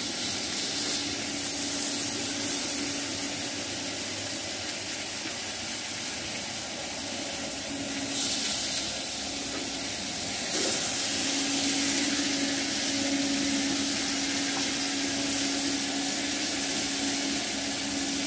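Pieces of beef sizzling on the hot grate of a portable gas grill, a steady hiss, with tongs turning them now and then. A faint steady hum sits underneath.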